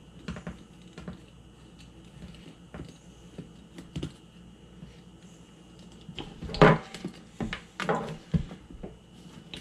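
Clicks and knocks of a GoPro camera and its plastic chin mount being handled and fitted onto a motorcycle helmet, scattered at first, then a louder run of clattering about two-thirds of the way through.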